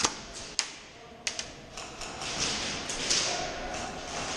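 Three sharp taps of airsoft play in the first second and a half, then rustling movement noise.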